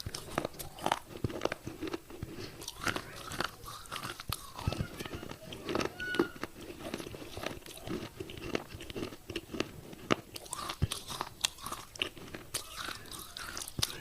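Wet clay pot pieces crunching between the teeth as they are bitten and chewed close to the microphone, in a rapid irregular run of sharp cracks.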